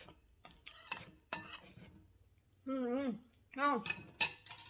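Eating utensils clinking and scraping against a dish, a few sharp clicks, as the last of the noodles is eaten.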